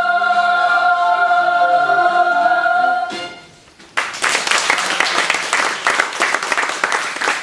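A young stage cast sings a final held chord that fades out about three seconds in. About a second later the audience suddenly breaks into applause.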